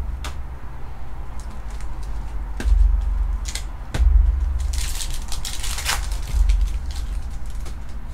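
Foil trading cards being handled: light clicks and taps as they are picked up and laid down, and a scraping rasp about five seconds in as cards slide against each other. A steady low hum and a few dull bumps run underneath.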